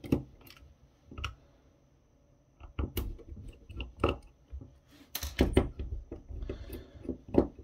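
Scattered sharp plastic clicks and taps from the case of a Uniden GMR1035-2 walkie-talkie being handled and worked by fingers after its screws are out, with a quick cluster of clicks about five seconds in.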